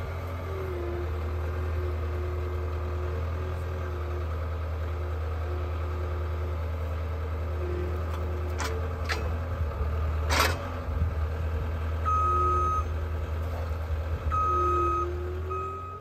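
Cat 226D3 skid steer's diesel engine running steadily while its grapple sets a pine log down on the steel sawmill bed, with three sharp clanks about halfway through, the third the loudest. Near the end its backup alarm sounds two long beeps.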